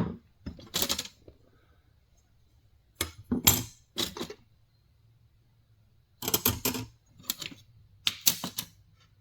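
Old metal calipers and dividers clinking against one another as they are handled and set down: several short clusters of sharp metallic clicks and clacks with pauses between them.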